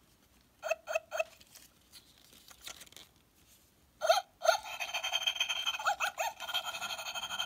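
Battery-powered "Space Robot" toy dog playing electronic sound effects through its tiny speaker. Three short high chirps come about a second in. From about four seconds, a continuous thin, tinny electronic yapping and beeping follows, with quick rising chirps.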